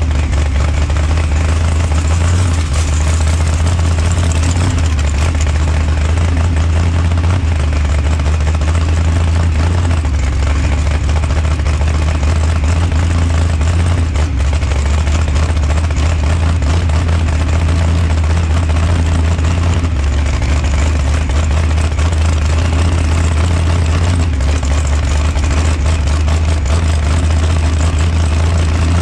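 Procharger-supercharged Chevy Nova drag car's V8 idling steadily and loudly, heard up close from a camera mounted on the car.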